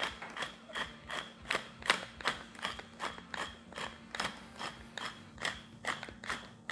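Hand pepper mill being twisted, grinding peppercorns: an even run of clicks, about three a second.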